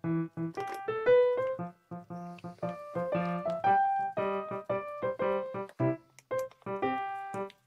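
Background music: a keyboard tune of short, detached notes at a quick, even pace.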